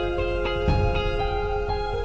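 Background music: a gentle melody of held notes that change every half second or so, with a soft low beat about two-thirds of a second in.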